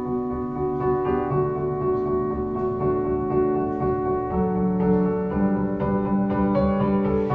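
Music: an instrumental passage of a song with piano-like keyboard notes and no singing.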